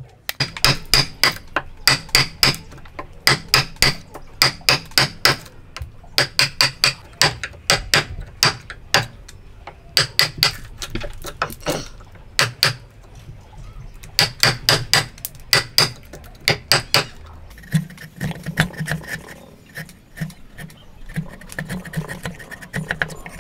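A hammer strikes a chisel in quick runs of blows, two or three a second, as the chisel chops waste out of a wooden dovetail socket. After about 17 seconds the blows stop and lighter scraping follows as the chisel pares the socket by hand.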